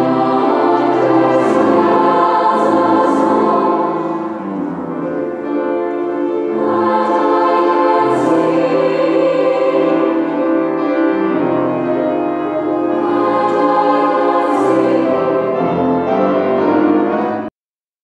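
Choir singing sustained, slow-moving chords. The singing cuts off suddenly near the end.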